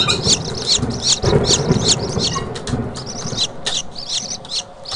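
Baby birds peeping: a quick, steady run of short high chirps, several a second, over a low rumbling noise.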